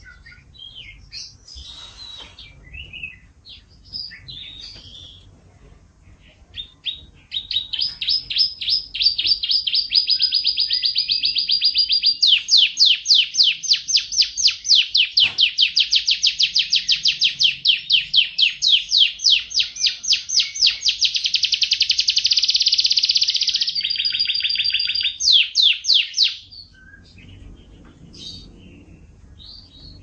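Domestic canary singing: a few scattered chirps, then from about seven seconds in a long, fast trill of rapidly repeated notes lasting nearly twenty seconds, changing pace and pitch a couple of times, before breaking back into scattered chirps near the end.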